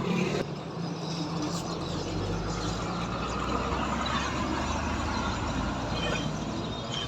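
A motor vehicle engine runs steadily, a low rumble that builds about a second and a half in and eases near the end, over general street noise.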